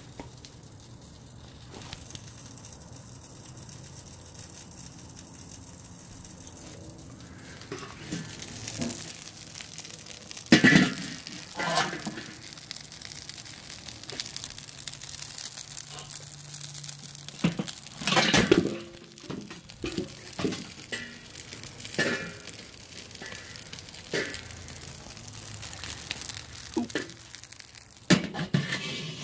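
Metal clanks and knocks from handling a charcoal kettle grill's lid and rotisserie spit, beginning about a third of the way in: the lid coming off, then the spit with the roast being lifted out and set down on a wooden board. A faint steady hum sits underneath for the first part.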